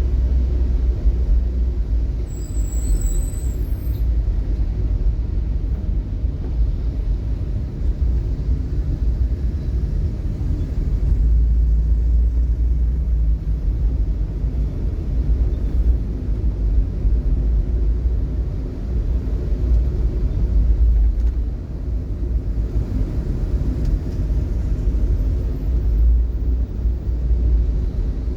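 Steady low rumble of a vehicle on the move in traffic, engine and road noise, with a brief high squeak about two seconds in.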